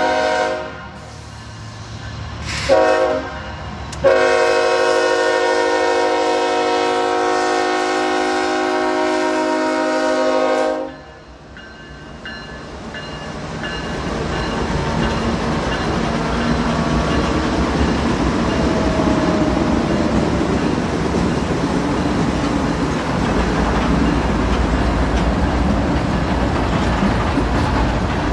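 Diesel locomotive horn blowing for a grade crossing: a long blast ending about a second in, a short blast around three seconds, then a long blast held until about eleven seconds. After it stops, the locomotive's engine and the train's cars rumble past close by, steady and loud.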